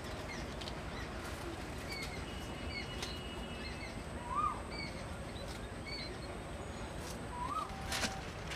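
Birds chirping: short high chirps repeat throughout, with a louder rising-and-falling call twice, over a steady low background hiss. A single sharp click comes near the end.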